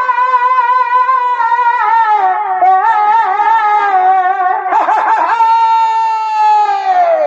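Shehnai playing a reedy melody of long, wavering held notes, with a quick flurry of short notes about five seconds in and a falling glide near the end.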